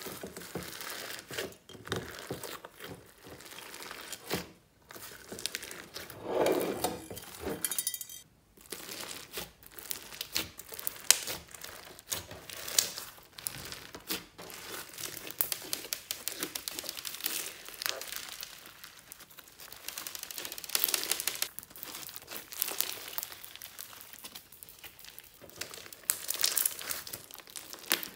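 Glossy white slime packed with small beads and confetti sprinkles being squeezed and kneaded by hand, giving a dense run of quick pops, crackles and crinkling clicks.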